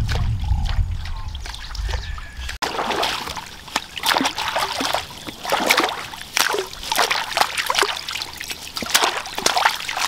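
Shallow muddy water splashing and trickling in irregular bursts as hands cut and rinse water spinach stems in it. For the first two and a half seconds a low rumble lies under the water sounds, then stops abruptly.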